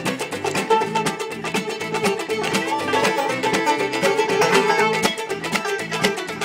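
Old-time string band playing a fiddle tune: bowed fiddle melody over clawhammer banjo and guitar, at a steady, even rhythm.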